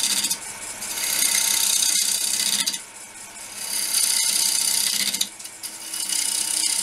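Wood lathe spinning a green-wood bowl blank while a cutter made from a drill bit shaves its side. Three hissing cutting passes of a second or two each, with the lathe motor's steady hum between them.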